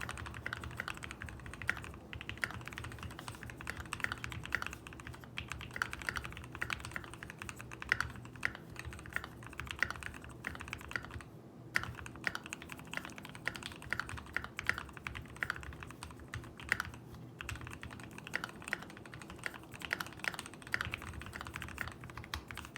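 Continuous typing on a Keychron Q2 mechanical keyboard with lubed and filmed Gateron Ink Black v2 linear switches and PBT XDA keycaps: a rapid stream of deep keystrokes, pausing briefly twice.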